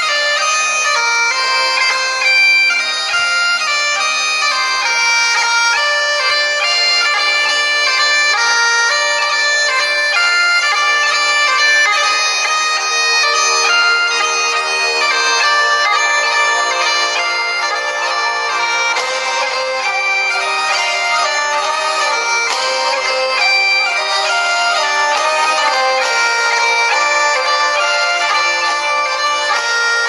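Background music: a melody of held notes moving over steady sustained drones, playing continuously at an even level.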